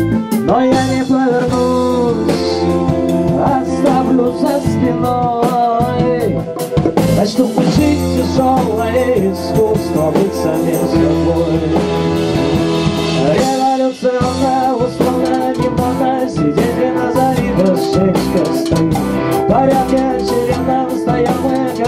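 Rock band rehearsal playing live: electric guitar through an amp, Roland RD-64 digital piano and drum kit in an instrumental passage between vocal lines, with a brief drop in loudness about two-thirds of the way through.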